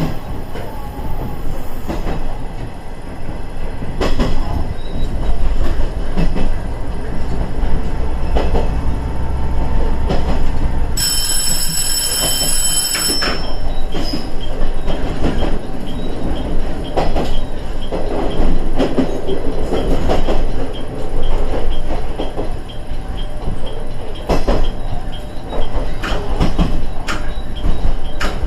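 KiHa 110 series diesel railcar running along the line, with engine and wheel rumble and intermittent clicks from the wheels over the rails. About eleven seconds in, a high steady tone sounds for about two seconds.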